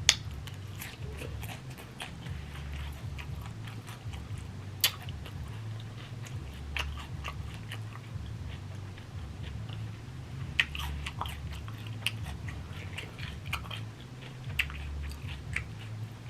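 A person chewing and biting mouthfuls of food close to the microphone: wet mouth clicks and smacks, with a few sharper clicks standing out, over a low rumble that comes and goes.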